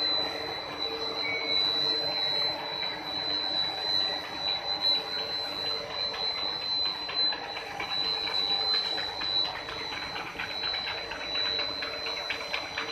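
Plastic corrugated pipe production line running, its extruder and corrugator giving a steady mechanical hum with a high whine. From about halfway through, a fast, light clicking comes in on top.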